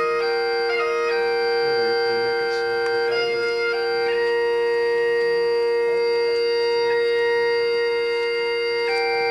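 Carillon playing a slow melody in sustained, organ-like notes over a steady, unchanging drone, the notes held rather than struck and fading.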